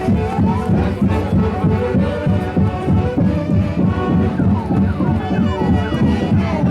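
Live orchestra playing festive dance music with a steady, pounding beat; a few short falling glides sound over it in the second half.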